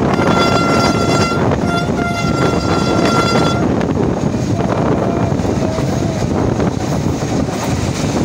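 Horn of the HGMU-30 diesel-electric locomotive hauling the train: a long blast about a third of a second in, a short toot after a brief break, then a second long blast that cuts off at about three and a half seconds. Under it, the steady rush of wind on the microphone and the train running on the track.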